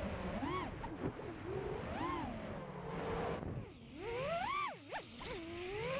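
FPV quadcopter's brushless motors whining, their pitch swooping up and down with the throttle, dropping low twice in the second half as the throttle is cut and then climbing again.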